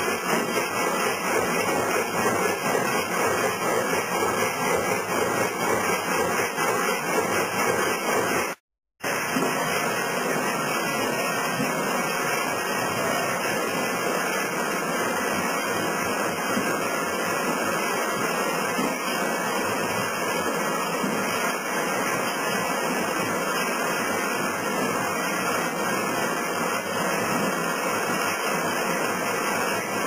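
Historic sawmill machinery running steadily: a frame saw with its drive belts and moving frames, driven by an old electric motor, making a constant dense mechanical noise. The sound cuts out for a moment about nine seconds in.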